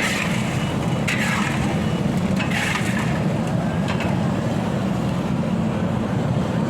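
Steady low rumble of street traffic and engines, with a few short hissing bursts in the first three seconds.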